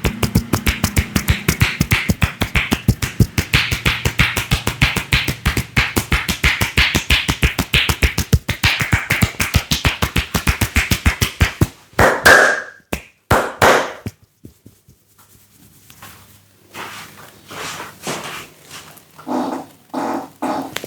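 A barber's hands slapping and tapping rhythmically on a client's head in an Indian head massage, a fast even beat of about seven strokes a second. About twelve seconds in, a few louder slaps break the rhythm. After a short pause, slower, softer taps follow.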